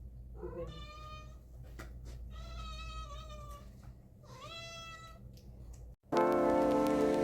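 A cat meowing three times in drawn-out calls, the middle one the longest.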